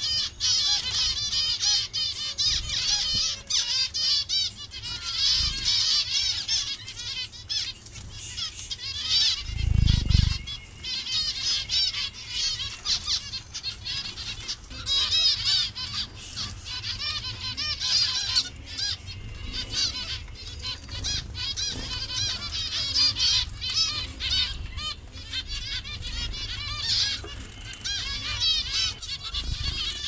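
A colony of zebra finches calling all at once: a dense, unbroken chorus of short high chirps. A low thump comes about ten seconds in.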